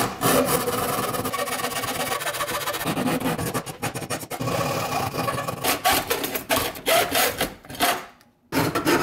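Hand hacksaw cutting through a thin aluminium plate, a steady run of quick rasping strokes that stops briefly near the end.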